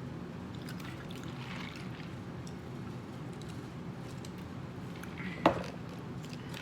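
Quiet eating sounds, soft chewing and mouth noises, over a steady low hum, with one short sharp mouth sound about five and a half seconds in.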